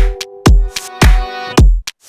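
Background electronic music with a steady kick-drum beat, a little under two beats a second, under held chords; it drops out for a moment near the end.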